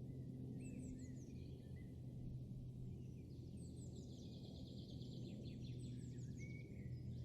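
Soft background birdsong: repeated short, high, falling chirps, with a quick trill about halfway through, over a steady low drone.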